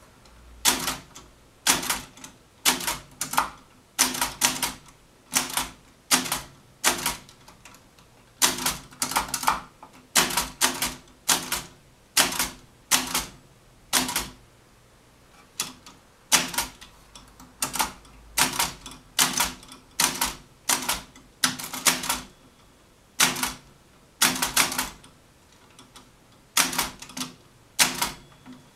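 Mignon index typewriter typing at a slow, even pace: sharp metallic clacks, many in quick pairs, about one character a second, with a few brief pauses between groups.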